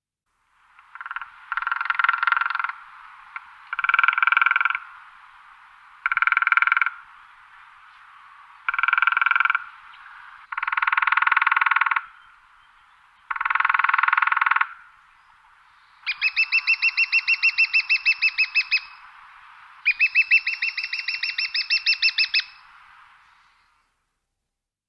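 Woodpecker drumming on a tree: a series of short, rapid drum rolls about a second long and a couple of seconds apart, then two longer rolls of about three seconds near the end.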